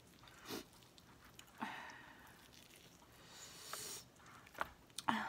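Quiet sniffs and breaths, with faint soft sounds of fingers tearing rotisserie chicken meat. The sniffing comes from the heat of spicy fried jalapeños.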